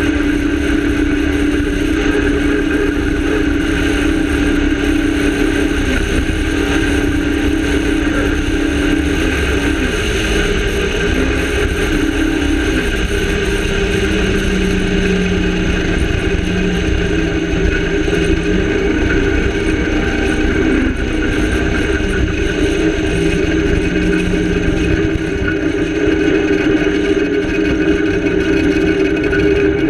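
Rally car driving at speed on a dirt road, its engine running hard and loud. The engine note drops about twelve seconds in and climbs back up about twenty seconds in.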